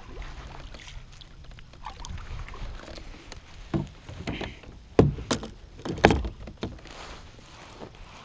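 Knocks and clicks from a fishing rod and baitcasting reel being handled aboard a kayak, over a low rumble. A few sharp knocks come in the middle, the loudest two about five and six seconds in.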